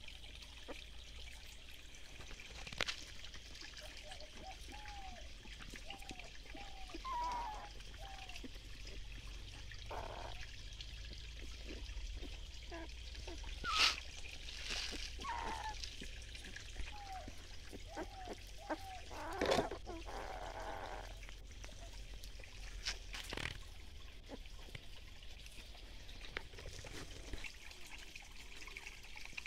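Shallow stream trickling steadily over rocks, with wet newborn puppies giving short, high whimpers in runs. A few sharp knocks or splashes stand out, the loudest about fourteen and twenty seconds in.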